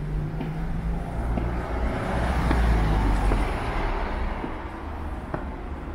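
A road vehicle passing by, its engine rumble and tyre noise swelling to the loudest point about halfway through, then fading. Faint footsteps on the stairs tick through it.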